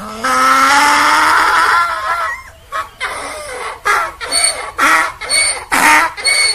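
Donkey braying: one long drawn-out call with a slowly rising pitch, then a run of rhythmic hee-haw pulses about two a second.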